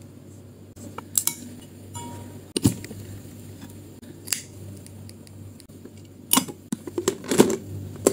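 Sharp metallic clicks and snaps from a flip-top windproof lighter being opened and struck. Near the end comes a quick cluster of clattering knocks as a pink disposable plastic lighter is dropped into a small swing-lid plastic trash bin.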